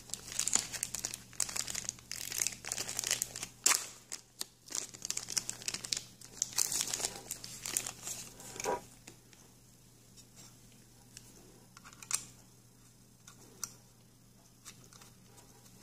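Clear plastic bag crinkling and rustling as the antenna is unwrapped, in irregular bursts for the first nine seconds or so. It then goes quiet apart from a few light clicks, a sharper one about twelve seconds in, as the antenna is handled and fitted onto the card's connector.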